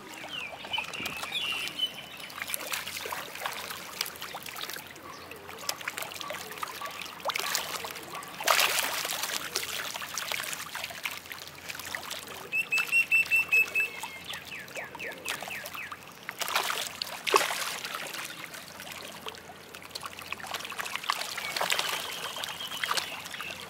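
A crowd of fish thrashing and splashing at the water's surface in a feeding frenzy, with louder surges of splashing every few seconds. A bird chirps a short run of quick notes about halfway through.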